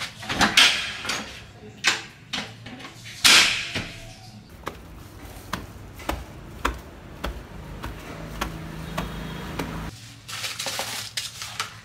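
Plastic carrier bags rustling while being handled, amid scattered clicks and knocks from a hotel room door being opened and closed.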